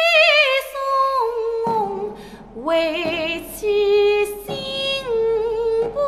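A woman singing a slow Chinese melody with long held notes, wavering vibrato and sliding pitch changes; the lyrics are 官人言太重，为妻心不宁.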